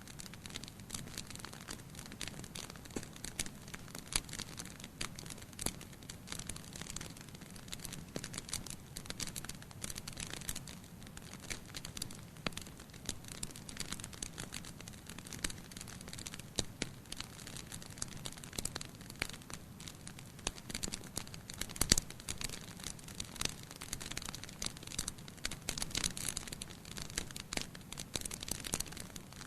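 Bonfire crackling: dense, irregular pops and snaps over a steady hiss, with one louder snap about three-quarters of the way through.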